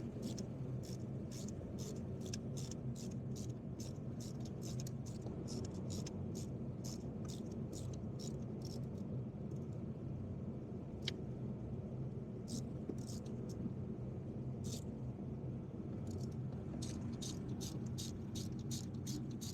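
Ratchet wrench clicking in short, irregular bursts as it is swung back and forth, over a steady low hum.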